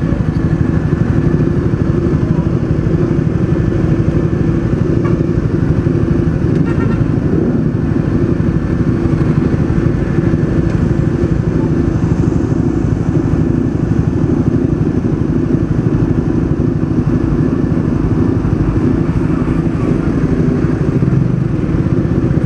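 Honda VFR400 NC30's V4 engine idling steadily, close to the microphone, with no revving.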